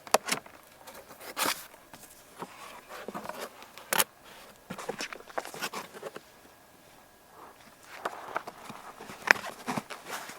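Irregular light clicks, knocks and rustles, with a quieter stretch a little past the middle; the sharpest knock comes about four seconds in.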